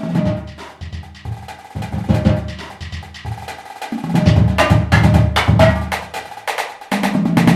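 Marching drumline battery playing a choppy warm-up etude: rapid snare strokes over low pitched bass-drum notes. It is sparse and quieter at first, then louder and denser from about four seconds in, with a short gap just before the end.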